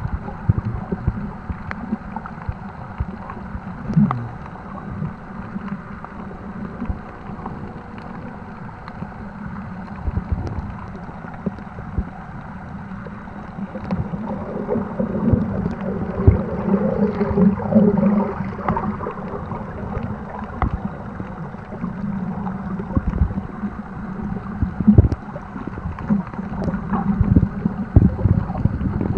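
Muffled underwater sloshing and gurgling picked up by a camera held below the surface, with irregular knocks and thumps, getting louder and busier from about halfway through.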